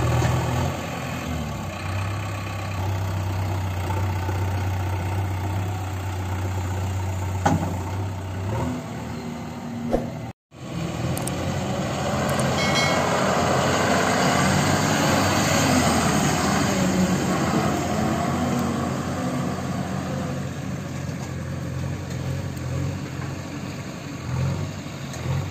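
Diesel engine idling steadily. After a short break, a loaded Ashok Leyland tipper truck pulls away over a dirt track, its diesel engine working hard, growing louder and then slowly fading as it drives off.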